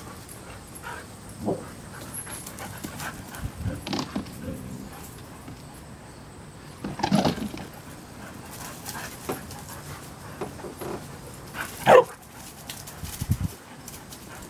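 Two dogs play-fighting, barking now and then in short bursts; the loudest bark comes near the end.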